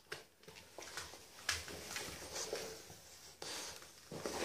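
Faint scattered rustles and light taps in a small room, with louder bursts about a second and a half in and again around three and a half seconds: a small dog moving about and being handed treats.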